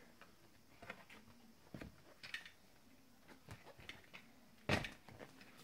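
Faint paper rustles and light taps of a child's hands handling and turning the pages of a picture book, with a louder rustle about two thirds of the way through.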